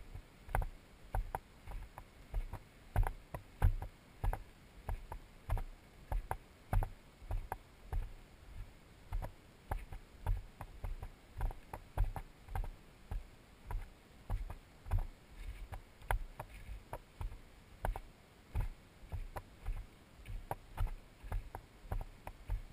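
Walking footsteps of a hiker on a dirt and gravel trail, a steady rhythm of about two steps a second, each a low thud with a light crunch, picked up by a body-worn camera.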